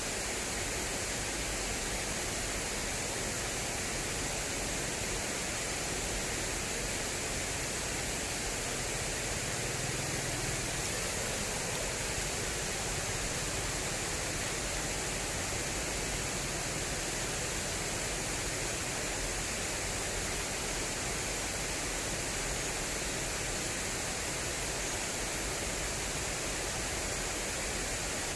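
Fast-flowing water rushing steadily down an irrigation channel, an even, unbroken rushing hiss.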